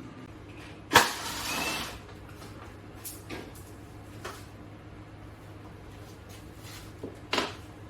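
Handling sounds from the camera being set up on a tripod: a sharp knock about a second in, a brief scrape, then a few light clicks.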